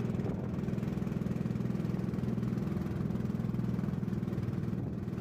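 Small boat engine running steadily at low speed, a fast even pulsing drone.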